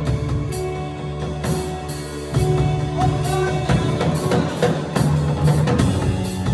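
Band music with a drum kit, bass and held chords, the drums keeping a steady beat.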